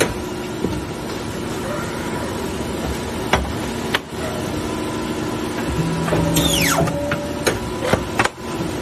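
Industrial paper guillotine cutter running with a steady hum, and a falling whine with a low tone about six seconds in. Several sharp knocks of paper stacks being jogged and pushed across the steel table.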